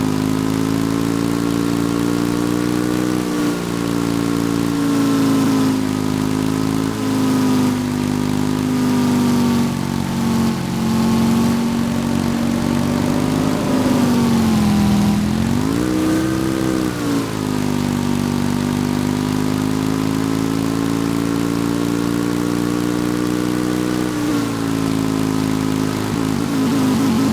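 Motorcycle engine running at a steady speed, its pitch dipping and then rising again briefly about fifteen to seventeen seconds in before settling back.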